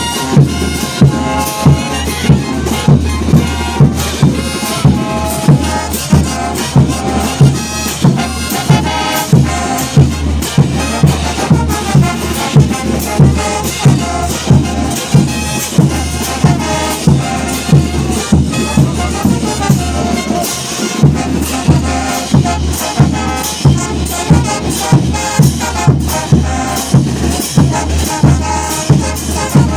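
Bolivian brass band playing: trumpets and trombones over a steady bass drum beat, about two beats a second.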